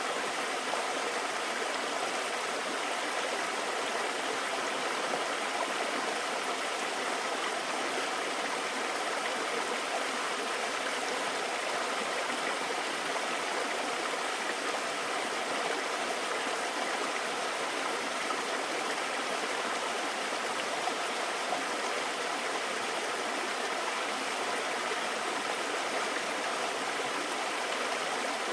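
Mountain valley stream water flowing, a steady rush of running water that holds at the same level throughout.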